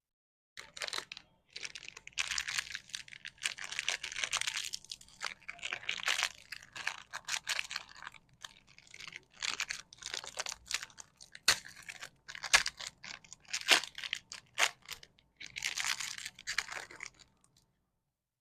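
Plastic lollipop packets crinkling and being torn open, in irregular bursts of rustling with sharp crackles, stopping about a second before the end.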